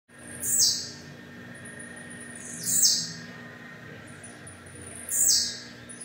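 Caged blue-black grassquit (tiziu) singing its short song three times, each a high note falling in pitch and about half a second long, with thin high notes between.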